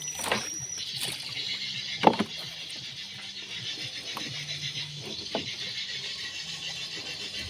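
A few sharp knocks and rattles against a small paddle boat, the loudest about two seconds in, over a steady high hiss.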